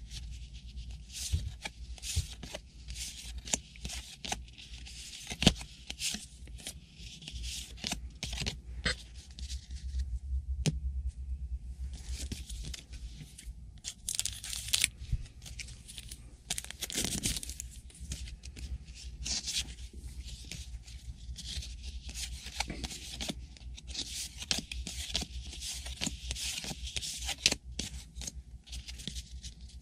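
Trading card packs being torn open and cards handled: irregular paper tearing and crinkling with many short clicks of cards being flicked through, over a low steady hum.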